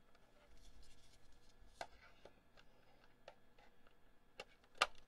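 Small plastic clicks and handling noise as the pedestal is fitted back onto a Jabra GN 9120 wireless headset base, with a sharper click near the end.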